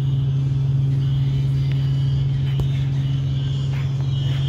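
A truck's diesel engine idling with a steady, unchanging low hum.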